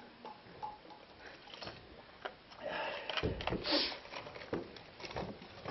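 Scattered light clicks and knocks, then, about two and a half seconds in, a louder stretch of rustling with low bumps and knocks as a player moves and bends right beside the microphone.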